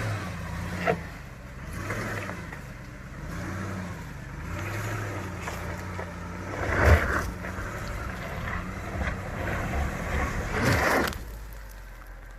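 A truck engine revving up and down over and over as it works through a mud bog, with several thumps, the loudest about seven seconds in. The engine note fades near the end.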